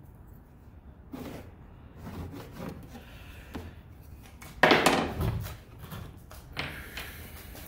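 Handling noise of a plywood sheet and a speed square on a wooden workbench: pencil rubbing along the square, then short scrapes and knocks as the square is picked up and the plywood is shifted, the loudest a knock and scrape about five seconds in.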